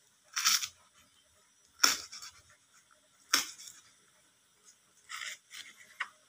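A kitchen knife chopping through scallion stalks onto a plastic cutting board: about five separate cuts, each short and sharp, irregularly spaced a second or more apart.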